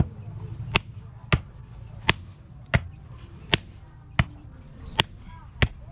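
Hammer blows on a thin steel rod laid against the head of a claw hammer used as an anvil: nine sharp metallic clanks, about one every 0.7 seconds, as the rod is shaped for a spear.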